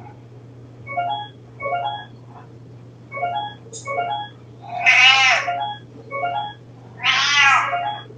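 An electronic oven timer beeping a short tune over and over. A cat meows twice, loudly, about five and seven seconds in, over a steady low hum.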